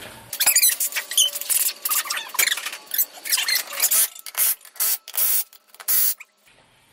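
Impact wrench run in a quick series of short bursts, driving and snugging the lug nuts on a front wheel; the bursts stop about six seconds in.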